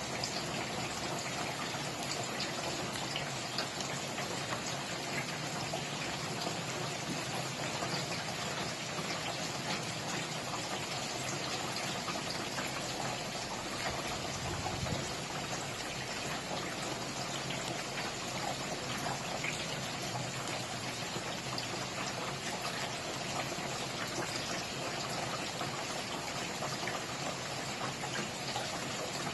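Steady rainfall, an even hiss of falling rain with many small drops pattering close by.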